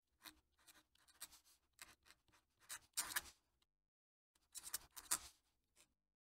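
Fountain pen nib scratching faintly across paper in a run of short cursive strokes. The strokes break off for about half a second a little under four seconds in, as the pen lifts, and then a second run of strokes follows.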